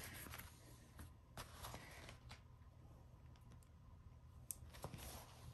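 Near silence with faint rustling and a few light clicks as a rolled diamond painting canvas is turned in the hand.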